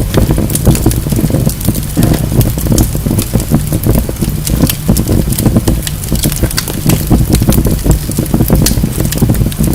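Wood fire burning in a fireplace: logs crackling with many quick, irregular pops and snaps over a steady low rumble of the flames.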